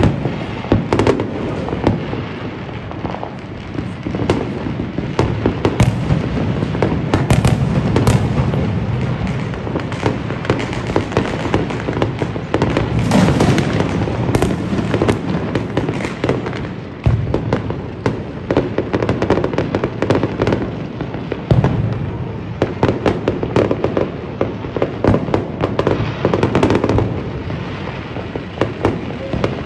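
New Year fireworks and firecrackers going off without a break: dense popping and crackling over a heavy low rumble of bangs.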